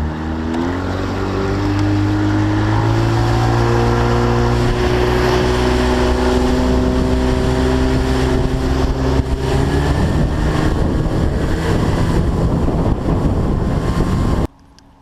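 A boat's motor running under way, its pitch climbing over the first second as it speeds up and then holding steady, with wind rushing on the microphone. The sound cuts off suddenly near the end.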